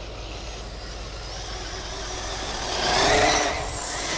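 Radio-controlled trucks racing on a dirt track: a steady motor noise that swells about three seconds in, with a rising whine as one comes close.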